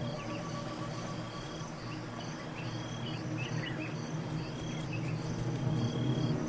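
Insects chirping in steady repeated high pulses, with a few short bird-like chirps among them, over a low hum.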